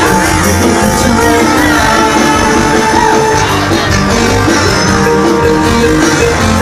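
Loud amplified pop music over a stage sound system, with a steady beat and a moving bass line, plus some singing.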